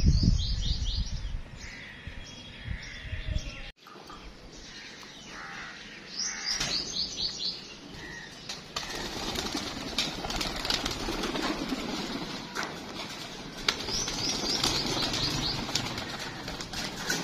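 Pigeons' wings flapping, with a short run of quick, high bird chirps heard three times: near the start, in the middle and near the end. A low rumble sits at the very start.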